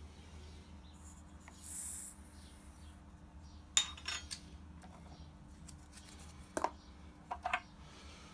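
A charge of smokeless rifle powder poured back into a .308 brass case, heard as a brief hiss about two seconds in. It is followed by light clicks and clinks of the brass and metal reloading tools being handled.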